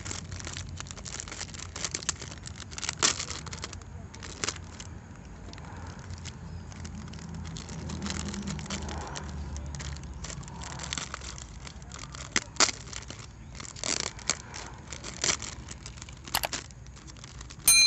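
Plastic toy car and its packaging being handled: scattered clicks, taps and crinkles over a low steady hum, with a short sharp ring near the end.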